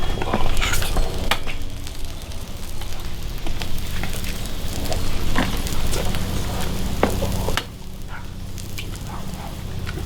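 Bacon, broth and potatoes sizzling on a flat-top griddle, a steady frying hiss with a few sharp clicks and knocks mixed in. The sizzle drops in level about three-quarters of the way through.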